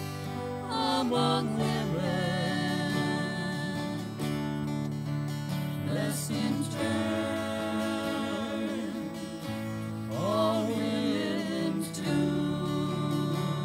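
Live church music: grand piano and acoustic guitar accompanying a small group of singers in slow, held chords. The voices waver with vibrato, swelling in about a second in, around the middle and again near the end.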